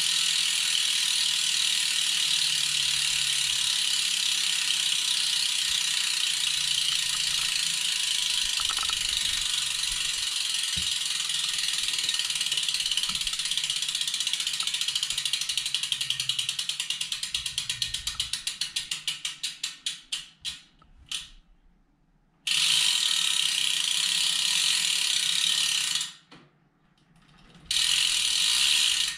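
Six-pawl freewheel hub of a Superteam 50 mm carbon rear wheel ratcheting as the wheel coasts, a fast, even clicking buzz. About two-thirds of the way through, the clicks slow and spread out into single clicks and die away as the wheel runs down. The buzz then starts again abruptly at full speed twice, after short silences.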